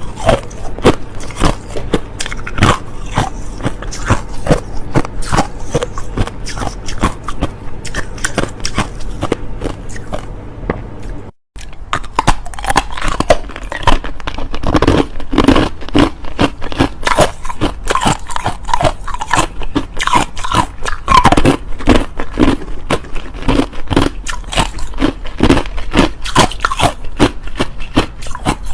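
Hard, clear crushed ice being bitten and chewed close to the microphone: a dense, continuous run of sharp crunches and cracks. There is a brief drop-out to silence about eleven seconds in.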